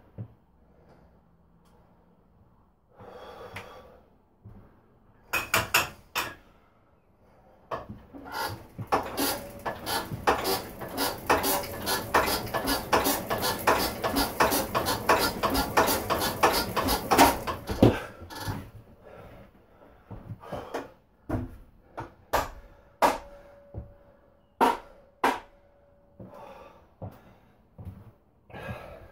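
A 1940s Lister JP4 four-cylinder diesel being hand-cranked with its starting handle: for about ten seconds in the middle a fast, dense mechanical clatter as the engine is spun over, with scattered single knocks and clicks before and after.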